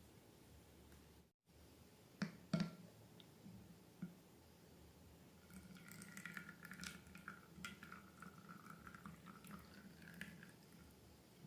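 Slime being squished and dripping: a few sharp wet clicks, then several seconds of dense crackling squelches.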